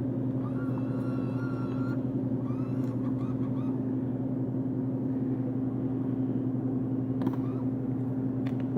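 Vending machine's steady low electrical hum, with a brief higher whine from about half a second to two seconds in and a single click near the end.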